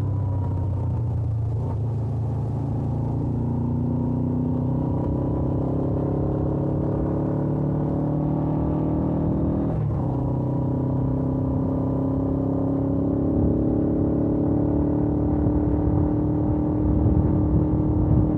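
Suzuki GS500F's air-cooled parallel-twin engine running through its stock exhaust while riding. Its note climbs steadily, breaks briefly about ten seconds in, then climbs again.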